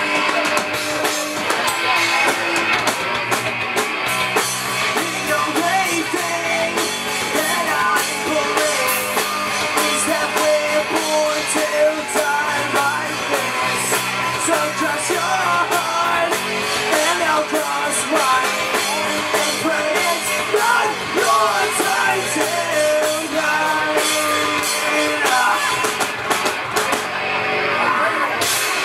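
Live rock band playing through a PA: electric guitars and drum kit, with a singer's voice over them.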